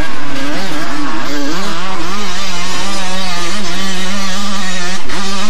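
Two-stroke motocross bike engine running loud and close, its pitch holding fairly steady with small wavers as the throttle is worked.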